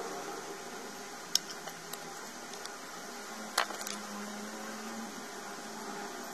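Steady room hiss like a running fan, with two small clicks, one about a second in and a sharper one about three and a half seconds in.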